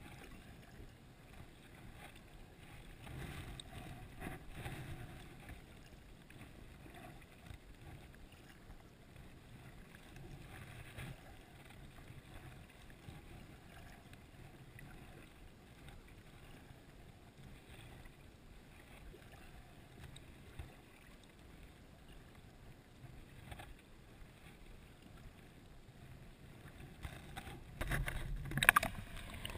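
Kayak paddle blades dipping quietly into calm water, stroke after stroke, with louder splashing near the end.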